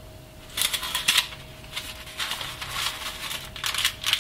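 Parchment-paper piping bag crinkling and rustling as it is handled, in several short, uneven bursts starting about half a second in.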